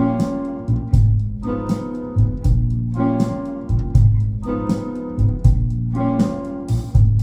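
Instrumental music played back through hi-fi loudspeakers: sustained chords that change about every second and a half, over deep bass notes and sharp drum hits.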